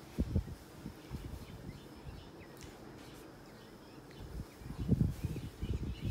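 Soft low thuds and rustling of footsteps moving through wood-shaving bedding: one pair early on, then a run of them in the last second and a half.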